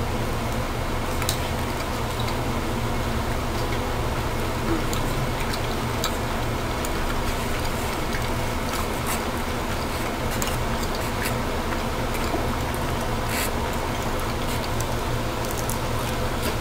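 Biting into and chewing a slice of pizza, with scattered faint mouth clicks, over a steady low hum and hiss.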